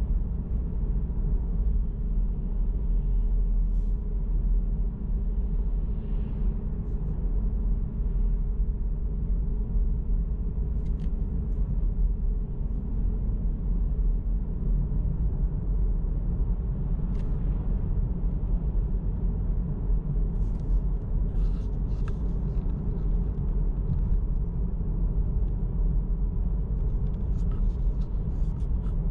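Car driving at a steady pace: a continuous low rumble of engine and road noise, with faint clicks and rattles now and then, several close together in the middle and near the end.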